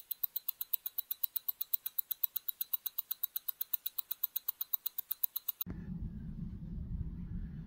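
Rapid, even ticking like a mechanical watch, about seven sharp ticks a second. It stops suddenly about five and a half seconds in and gives way to a steady low rumble.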